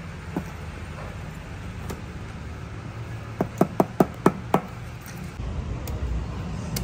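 Six quick, sharp metallic taps in just over a second, from a small tool knocking on a metal watch bracelet's link pin while links are taken out to shorten the strap.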